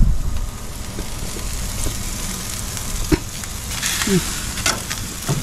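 Split duck heads sizzling on a hot barbecue grill, with metal tongs clicking and scraping against the grate a few times in the second half.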